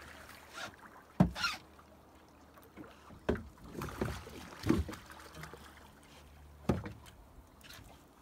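Water slapping against the side of a small fishing boat, with a few sharp knocks against the hull over a low steady hum; the loudest knock comes about a second in.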